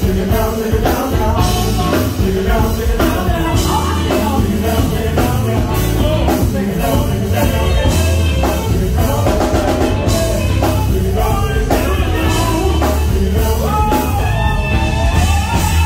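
Live band playing with a steady beat on a drum kit and a singer's voice over it.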